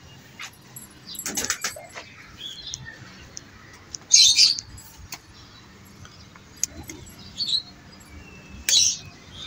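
Small birds chirping in a few short, high bursts, the loudest about four seconds in and another near the end.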